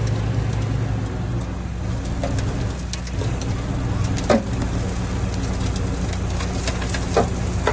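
Komatsu D20P bulldozer's diesel engine running steadily. A few short sharp metallic clanks come over it, the loudest about four seconds in.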